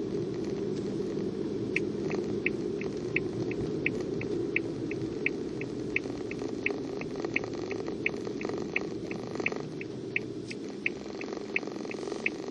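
Car turn-signal indicator ticking, about three clicks a second in alternating louder and softer pairs, starting about two seconds in, over a steady low rumble of road and engine noise inside the moving car.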